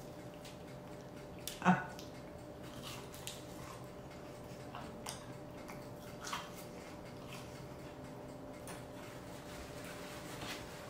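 Close-up eating sounds: biting into and chewing a battered onion ring, with one sharp click-like mouth sound a little under two seconds in and a few fainter clicks later, over a faint steady hum.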